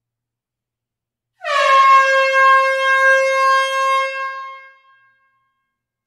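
A single air horn blast in a close hall, starting about a second and a half in and held for about three seconds before it fades out. Its pitch drops a little right at the start, then holds steady.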